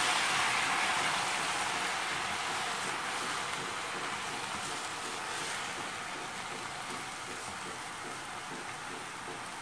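Green beans and onion sizzling in hot olive oil in a stainless-steel pot, a dense hiss that slowly dies down.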